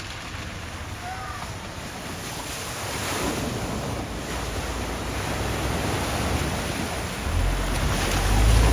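Rushing water of a flooded ford under wind buffeting on the microphone, the water noise growing louder from about three seconds in, with a low vehicle rumble building near the end as a vehicle approaches the water.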